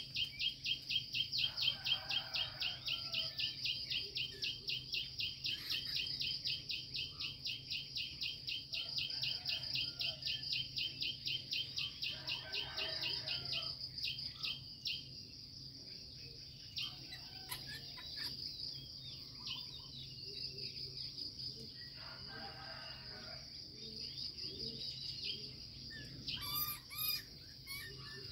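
Outdoor insect chorus: a steady high-pitched buzz, with a rapid pulsing insect trill that stops about halfway through, and scattered bird calls.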